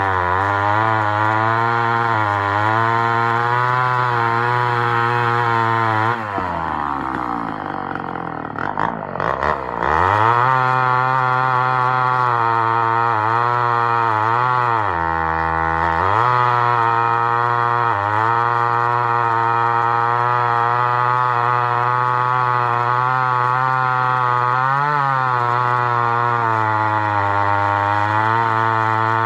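Homelite Super XL Auto two-stroke chainsaw running at high revs while cutting through a large log. About six seconds in, the engine speed drops steeply for a few seconds, then climbs back up. A shorter dip follows about fifteen seconds in.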